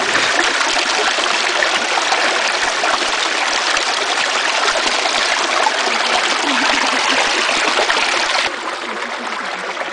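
Stream water rushing over rocks and through a gold-prospecting sluice box, a loud, steady hiss; it falls suddenly to a lower level near the end.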